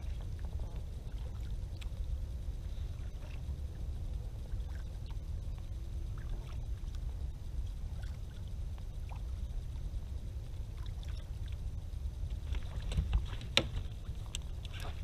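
Kayak on the water: a steady low rumble with small water splashes and light clicks against the hull. A few sharper, louder knocks come near the end.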